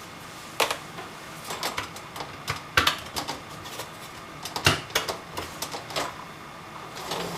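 Irregular clicks and clacks of dishwasher parts being handled, plastic knocking against plastic, about seven sharp knocks with the loudest just before the middle and just past the middle.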